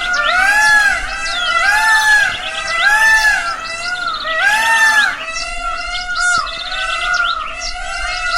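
Several birds chirping and calling together. Through the first five seconds a pitched, arching call repeats about once a second over the chirps.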